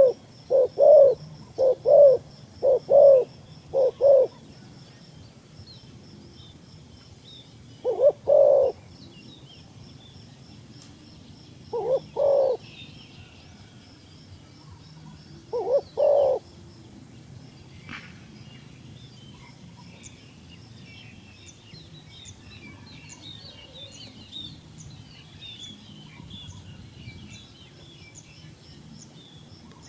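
Dove cooing: a quick run of low coos at the start, then three short coo phrases about four seconds apart. Small birds chirp faintly in the background, more in the second half.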